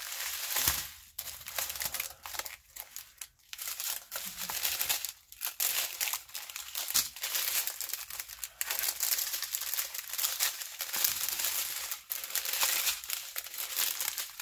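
Small clear plastic bags of diamond painting drills crinkling irregularly as they are handled and sorted.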